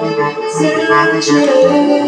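Live chamber-style music: cello and violin bowing held notes over a regular low pulse.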